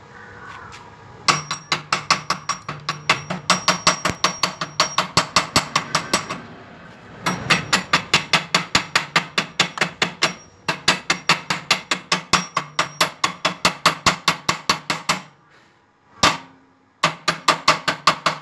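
Chipping hammer striking a fresh stick weld on steel square tube, knocking off the slag: fast runs of light, ringing metal taps, about five a second, with brief pauses between runs.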